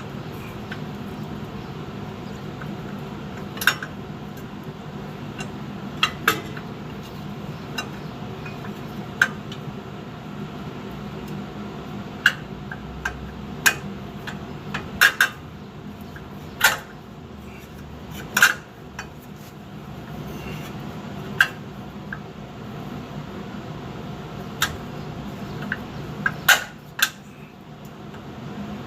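Irregular metallic clinks and knocks of hand tools and steel parts being handled during work on a pickup truck's rear axle, over a steady low hum.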